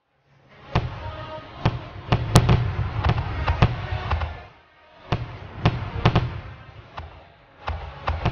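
Firework shells bursting: about a dozen sharp bangs over a continuous rumbling, crackling noise. It starts out of silence, dies down briefly about halfway, then picks up again.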